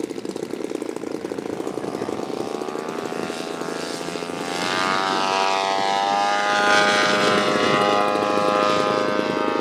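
Radio-controlled scale Spitfire model's propeller engine running, then opening up for the take-off run: its pitch rises over about three seconds and it grows louder, then holds a high steady drone as the model climbs away.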